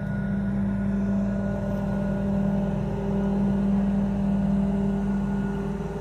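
Mobile crane's engine running steadily during a lift of an air-conditioning unit: a steady drone that swells a little around the middle.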